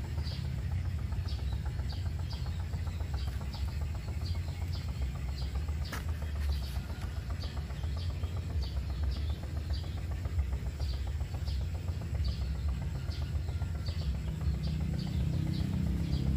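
Steady low wind rumble on the microphone, with a small bird chirping over and over, about two short high chirps a second.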